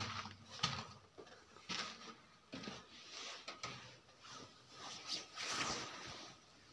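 Faint, irregular scuffs and knocks, roughly one a second, of someone moving about on a dusty rock floor inside a small cave.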